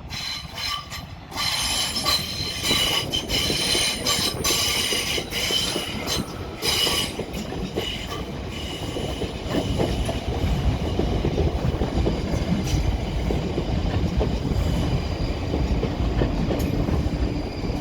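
A pair of Class 458 electric multiple units running through the station. For the first few seconds the wheels squeal with several high tones at once; the squeal then fades into a steady low rumble of wheels on the track.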